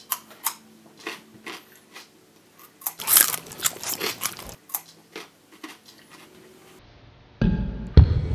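Raw carrot being bitten and chewed: crisp crunches, densest and loudest about three seconds in, then lighter ones. Music comes in near the end.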